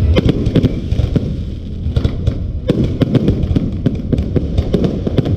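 Aerial fireworks going off: many sharp bangs and crackling pops in quick, irregular succession over a continuous low rumble of booms.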